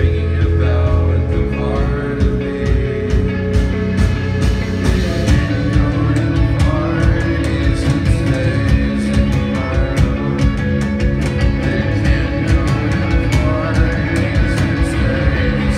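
Rock band playing live: electric guitars, bass and drum kit, with drum hits throughout.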